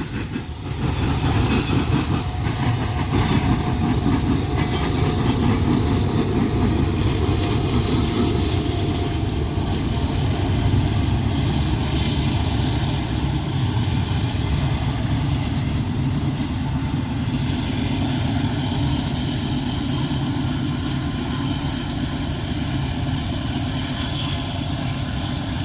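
A long loaded coal train rolling past, its freight-car wheels clattering steadily over the rail crossing diamonds.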